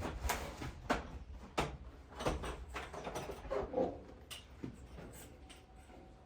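Irregular metallic clicks and knocks as the band blade and parts of a sawmill's blade housing are handled and fitted over the pulleys, louder early and tapering off.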